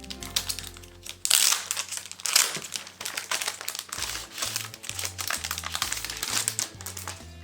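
Packaging being handled and crinkled in bursts as merchandise is unboxed, over background music with a steady beat.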